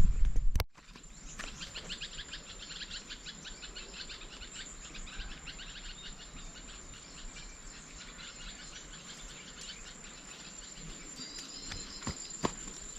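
Outdoor field ambience: insects keep up a steady high-pitched trill, with bursts of rapid chirping in the first few seconds and a short bird call near the end. A brief loud rumble at the very start cuts off abruptly.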